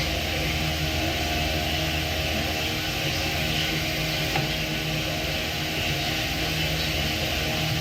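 A steady mechanical hum with a hiss over it, unchanging throughout.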